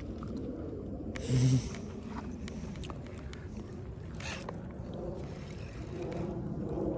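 Baitcasting reel being cranked, with faint clicks and a zipper-like whir over a steady low rumble. A short low voice sound comes about a second and a half in.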